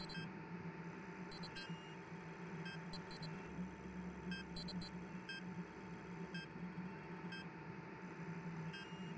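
Electronic beeps in quick pairs, high-pitched, four pairs about a second and a half apart, over a steady low electronic hum.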